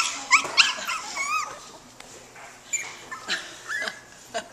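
Young puppies making short, high calls that bend in pitch as they play: a quick run of them in the first second and a half, then a few more spaced out towards the end.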